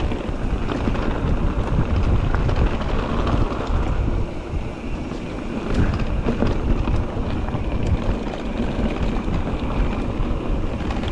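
Wind buffeting the microphone and the rumble of an electric mountain bike riding down a dirt trail, with scattered clicks and knocks from the bike over rough ground.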